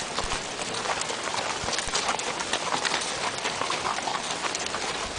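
Hooves of a large herd of goats clattering on a dirt road: a dense, steady stream of small clicks and scuffs.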